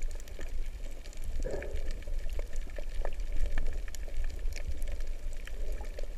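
Underwater sound picked up through a GoPro HD Hero 3's waterproof housing: a muffled low rumble of moving water with many scattered sharp clicks and crackles.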